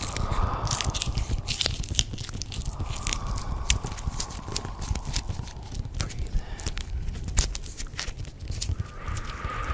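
Layered ASMR sound effects: dense crackling and crunching clicks over a low rumble, with a hissing whoosh that swells and fades a few times.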